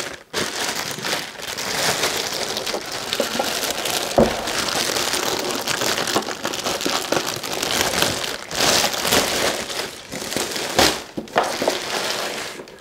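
Clear plastic wrapping crinkling and rustling as it is cut and pulled off a hard plastic carrying case, with a single thump about four seconds in.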